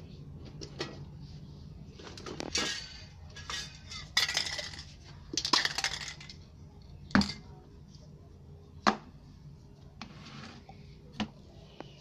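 Metal spray cans and painting tools handled on the worktable: scattered clinks and knocks, with a few short noisy bursts in the first half and three sharper knocks later on.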